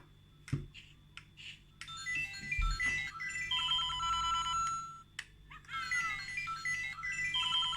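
LEGO Super Mario electronic figure's speaker playing bleeping game-style sound effects and short jingles, after a few light plastic clicks in the first second and a half. The second run of bleeps, about five and a half seconds in, opens with a quick falling sweep of tones.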